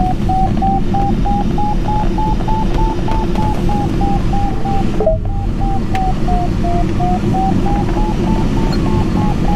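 Glider variometer beeping about three times a second, its pitch climbing, sinking and climbing again, with a brief break about five seconds in. Underneath is steady airflow noise in the cockpit of a Mini Nimbus HS7 sailplane.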